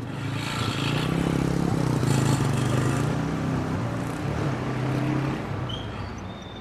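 A motor vehicle's engine running close by in street traffic, growing louder to a peak about two seconds in, then fading away after about five seconds.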